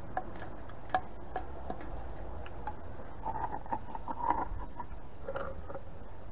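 Screwdriver prying the lid off a small metal paint tin: a series of light metal clicks and scrapes, busiest about three to four seconds in.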